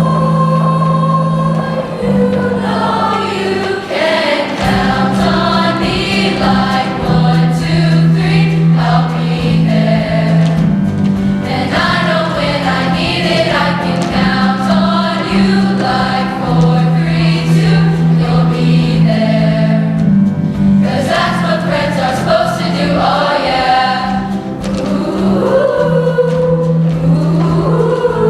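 Show choir singing in parts over instrumental accompaniment, with a steady bass line and drum strokes under the voices.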